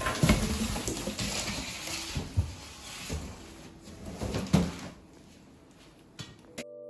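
Hands handling packaging while unboxing a mini fridge: rustling with several knocks, the loudest about two and a half and four and a half seconds in. The noise cuts off abruptly near the end.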